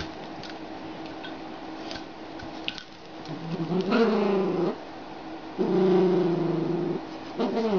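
A dog growling and moaning in play: a long call falling in pitch, a second long steady one, and a shorter one starting near the end.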